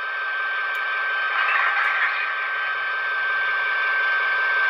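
HO-scale EMD GP35 model's Paragon 4 sound decoder playing a diesel locomotive running sound through its small onboard speaker, with a steady high tone under it and a brief hiss about a second and a half in.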